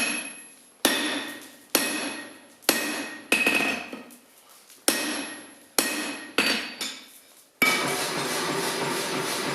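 Hand hammer blows on steel at a blacksmith's anvil, about one a second, each with a bright metallic ring that dies away between strikes. About two seconds before the end the strikes stop and a steady rushing noise takes over.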